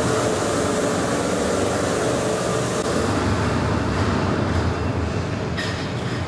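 Steady machinery running with a low hum under a wide hiss, shifting slightly about five and a half seconds in.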